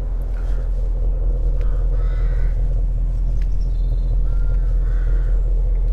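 Ford Mustang GT's 5.0-litre V8 idling with a steady low rumble, while a bird calls several times in short calls.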